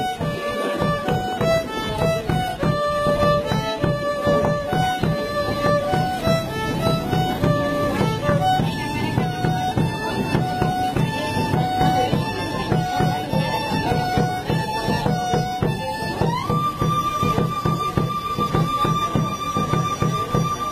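Violin playing a march melody in a run of held notes, with a bass drum beating steadily underneath. About three-quarters of the way through the violin slides up to one long held high note.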